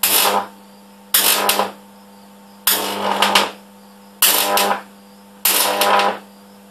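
High-voltage arcs from a stack of microwave oven transformers, drawn again and again from the terminal: five buzzing bursts about half a second each, one every second or so. Between them the transformers' steady mains hum carries on.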